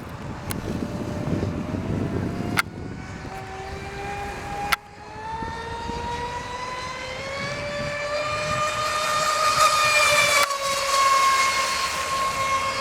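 Fast-electric deep-V RC boat running at speed: a steady high electric-motor whine that rises slowly in pitch and grows louder toward the end as the boat comes closer, with a few sharp clicks along the way.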